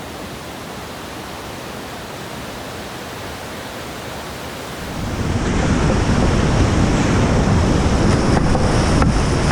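Rushing water of a mountain river, a steady noise that grows louder and heavier about halfway through, with wind on the microphone.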